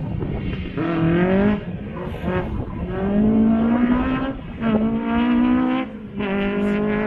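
Competition car engine driven hard, its pitch climbing under acceleration and dropping back four or five times as the revs fall between pulls.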